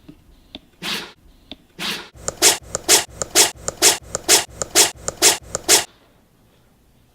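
A dog sneezing repeatedly: two single sneezes, then a quick run of about eight sneezes at roughly two a second.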